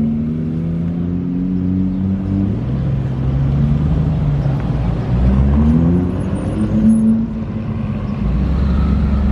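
A car engine running, its pitch dropping about two seconds in, then climbing again as it revs or pulls away and holding a higher note near the end.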